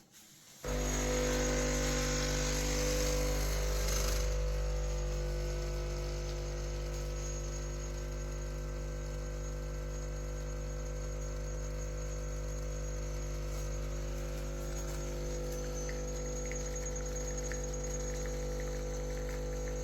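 Espresso machine's vibratory pump switching on under a second in and running with a steady, loud hum, with a hiss over it for the first few seconds.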